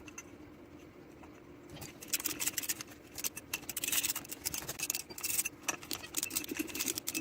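Ring spanner working rusty bolts out of a vending-machine boiler: quiet at first, then from about two seconds in a quick run of metal clicks and scraping as the spanner is turned and re-seated on the bolt.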